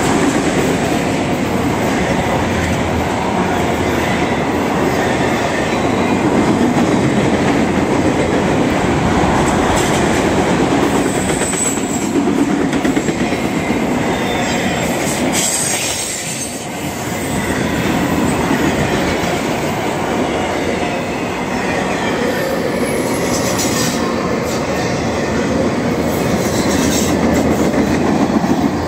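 Freight train of autorack cars passing close by: the steady noise of steel wheels rolling on the rails, briefly a little quieter about halfway through.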